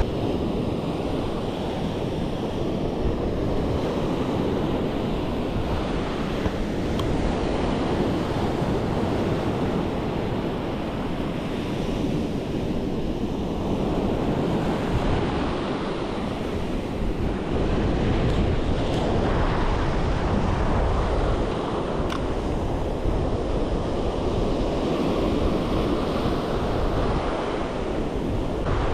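Ocean surf breaking and washing up the beach, a continuous rushing that swells and eases as each wave comes in, with wind rumbling on the microphone.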